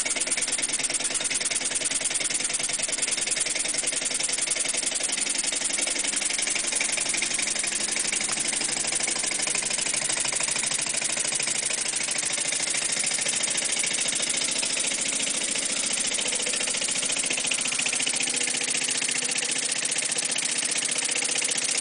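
Small homemade model steam engine running steadily on about 15 psi, its exhaust making a fast, even chuffing hiss. It is newly built and still wearing in.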